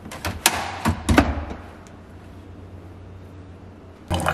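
Single-serve pod coffee brewer being handled: several sharp plastic knocks and clicks in the first second and a half as the lid is shut over the pod. Near the end the brewer starts up with a steady hum as it begins to brew.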